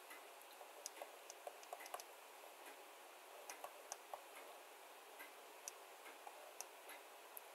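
Near silence with faint, irregular clicks and taps of a pen drawing on a tablet.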